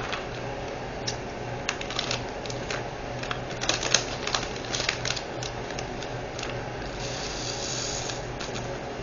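Small irregular plastic clicks and rattles as diamond-painting drills and their plastic storage containers are handled, densest in the middle, with a brief rustling rush about seven seconds in.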